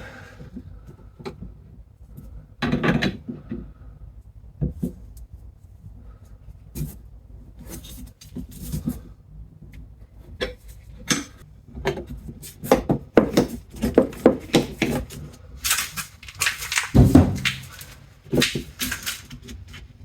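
Irregular clicks and knocks of hand tools on metal as a fastener on the rear wiper assembly is tightened, with a louder cluster of knocks near the end.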